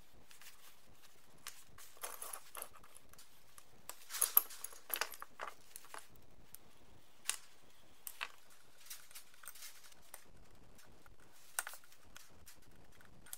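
Small metal parts of a vintage balance scale clinking and clicking as its beam assembly is taken apart with a screwdriver and brackets and screws are set down on the bench. The light clicks are scattered, with a brief cluster about four seconds in that holds the loudest.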